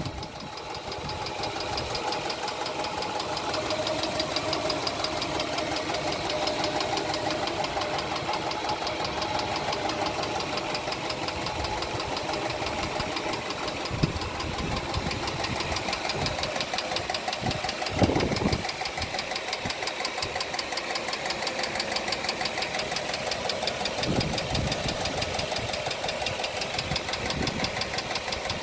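Car engine idling with a rapid, even ticking, an annoying tick present since the car was first started, which the owner wonders may be rod knock. A few short low thumps come through partway in.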